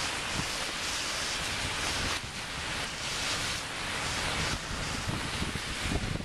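Steady rushing outdoor noise with irregular low rumbles, typical of wind buffeting the microphone over street ambience.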